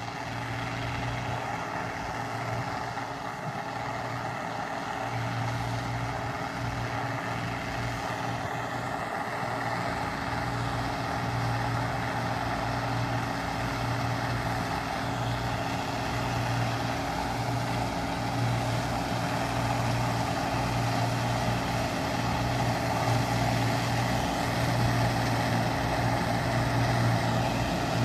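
Arbos 125 combine harvester's Perkins six-cylinder diesel engine running steadily as the machine harvests wheat: a constant low drone that grows gradually louder as it comes closer.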